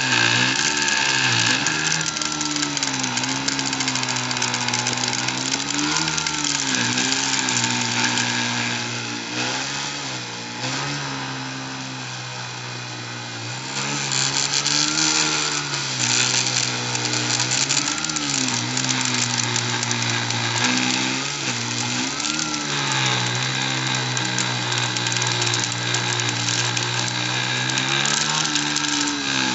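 Dremel rotary tool running as the spindle of a Cyclone PCB CNC mill and cutting acrylic, with a steady high hiss. Its motor pitch sags and recovers every few seconds as the cutting load changes.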